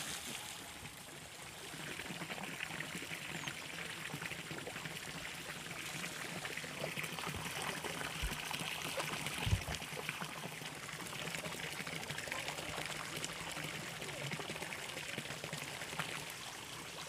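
Water trickling and running steadily, with one dull thump about nine and a half seconds in.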